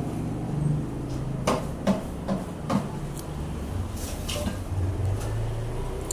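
Handling noises from taping a paper craft: four light knocks and taps in quick succession, then a short rasp like sticky tape being pulled, over a steady low background hum.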